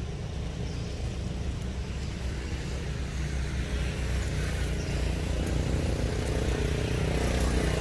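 A motor vehicle's engine running as a steady low rumble, growing slightly louder toward the end.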